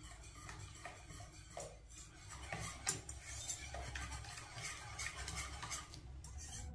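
Kitchen utensils clinking and scraping against dishes during cooking work, with one sharper clink about three seconds in.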